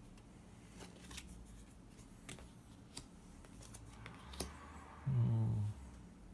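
Playing cards being drawn and laid onto a cloth-covered table: light clicks and slides of card stock scattered through. About five seconds in, a man gives a short low hummed "hmm".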